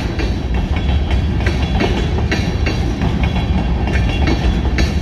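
Freight train of covered hopper cars rolling past without slowing: a steady low rumble of steel wheels on rail, with repeated clacks as the wheels cross the rail joints.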